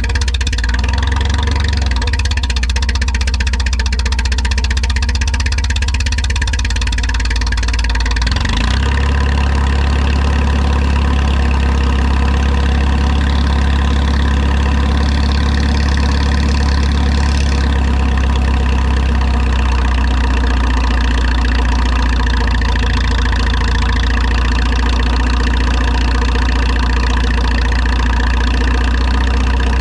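Minneapolis-Moline U tractor engine running steadily at idle; its sound changes about eight seconds in, with more higher-pitched content afterwards.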